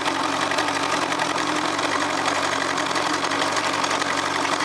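Yamaha 115 hp outboard motor idling steadily with its cowling off, a cover plate removed so cooling water spills from the open water passage.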